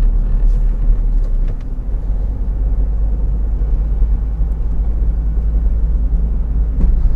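Steady low rumble of a car driving along a road, engine and tyre noise heard from inside the cabin, easing slightly about two seconds in.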